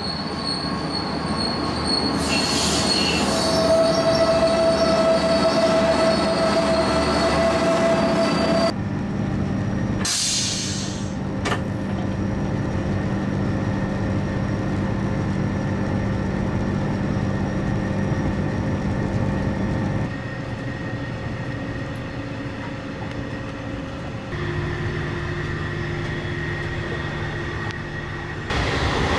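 Passenger train arriving at a station, its wheels squealing with a steady high tone for several seconds. After a brief loud hiss, the steady hum and rumble of the train running, heard on board.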